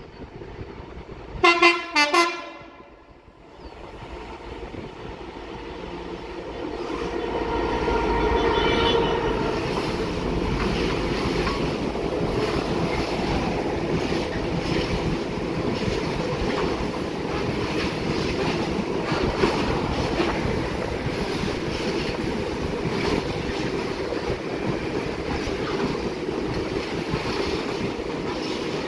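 Diesel locomotive sounding two short horn blasts. Its engine then grows louder as it approaches, followed by the steady rumble of the engineering train running by.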